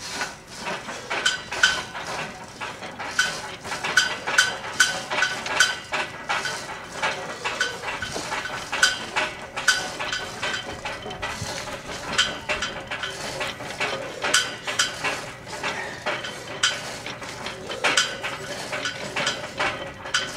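Steel weight-stack plates and pin of a cable machine clinking and clanking against each other over and over as the stack is raised and lowered during cable pushdowns, each hit ringing briefly.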